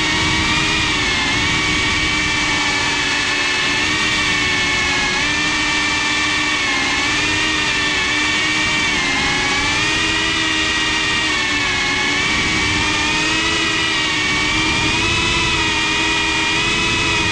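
GEPRC CineLog 35 cinewhoop FPV drone's motors and ducted propellers whining, recorded by the GoPro on the drone itself. Several close tones drift gently up and down in pitch as the throttle changes in flight.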